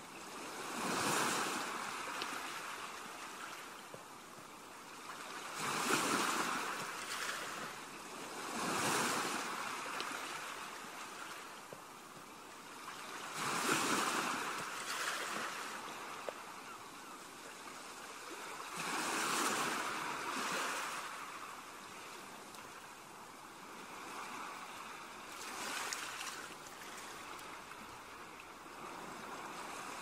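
Sea waves washing onto a shore: six surges of surf a few seconds apart, each swelling and falling away over a steady wash.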